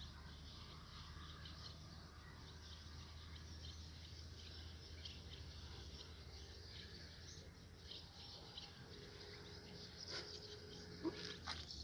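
Faint outdoor ambience: small birds chirping over a steady low hum, with a few sharp clicks near the end.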